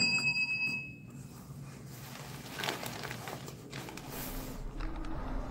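A bright, bell-like chime ringing out and fading away over about a second, followed by faint rustling and quiet room tone.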